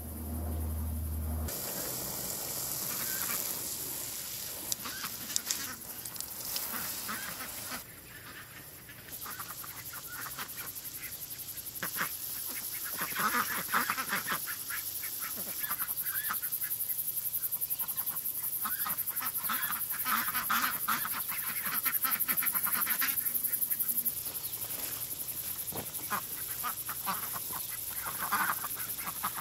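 A small flock of domestic ducks quacking, in several bouts of rapid, overlapping calls from a few birds at once.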